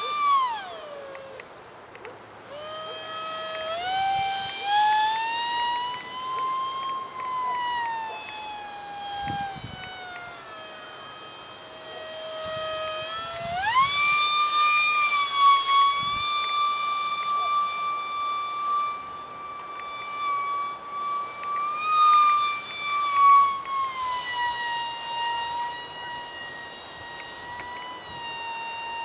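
Micro RC jet's small electric ducted fan (a UMX F-16 EDF unit) whining in flight, its pitch gliding down and up with the throttle. It drops off sharply about a second in, climbs again, sags low, jumps back up about halfway through and holds high, then eases down a little near the end.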